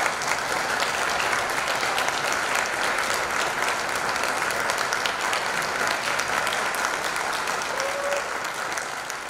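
Concert audience applauding, a dense steady clapping that begins to ease off near the end.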